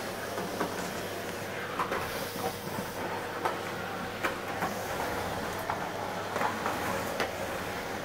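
Stick vacuum cleaner running with a steady hum and hiss, with scattered knocks and clacks as a dog paws and bites at its floor head.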